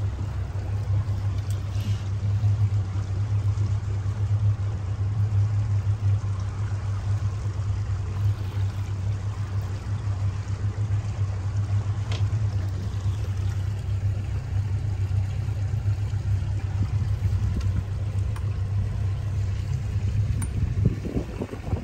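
Boat under way: the motor's steady low drone with water rushing along the hull.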